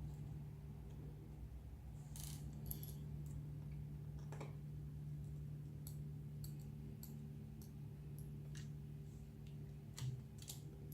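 Faint, scattered small clicks and ticks of a screwdriver and fingers working tiny screws out of a laptop screen panel, a dozen or so spread irregularly, over a steady low hum.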